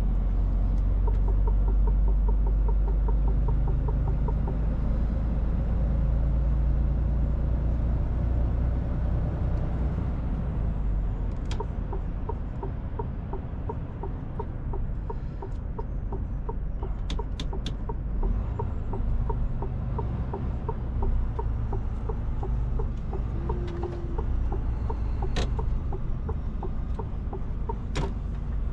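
Cab interior of a Mercedes-Benz Actros L 1848 truck on the move: the low, steady drone of its diesel engine with tyre and road noise, and a regular light ticking at about two or three a second. A few short, sharp clicks come and go, a small cluster about halfway through.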